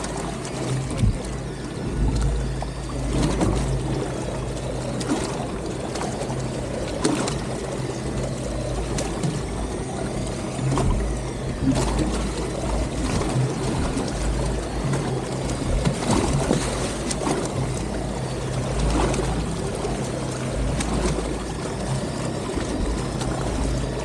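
Boat engine idling with a steady low hum while water sloshes and slaps against the hull in uneven splashes.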